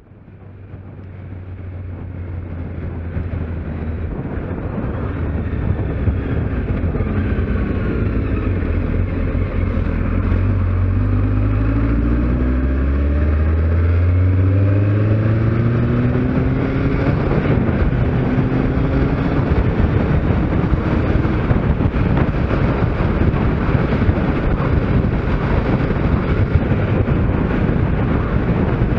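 Kawasaki Z750S inline-four engine under a rider's onboard camera. The sound fades in over the first few seconds, the engine note climbs steadily as the bike accelerates, and it then gives way to a steady rush of wind noise at cruising speed.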